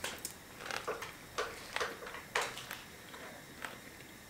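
A man chewing a mouthful of soft, juicy raccoon-meat taco close to the microphone: a string of short, wet mouth smacks at irregular intervals, most of them in the first two and a half seconds and one fainter near the end.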